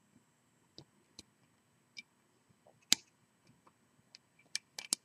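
Scattered small metal clicks of a hook pick and tension bar working the pins of a 5-pin U-change mortise cylinder during picking: single clicks a second or so apart, the loudest about three seconds in, then a quick run of several near the end.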